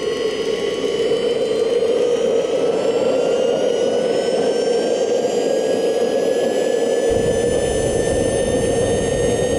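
Swiwin SW120B micro turbojet RC engine running loud: a steady roar with a high turbine whine that climbs slowly in pitch as the engine spools up toward full throttle. A heavier low rumble comes in about seven seconds in.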